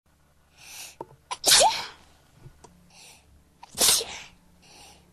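A person sneezing twice in a fit, each loud sneeze preceded by a quick breath in. The first, about a second and a half in, ends with a short rise in the pitch of the voice; the second comes about two seconds later.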